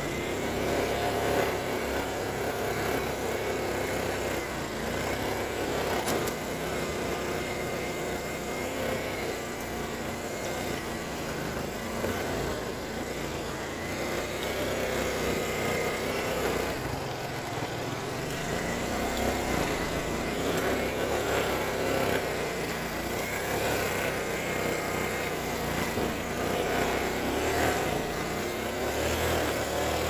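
ATV engine running steadily at low speed, heard from on board the machine, its pitch rising and falling gently with the throttle.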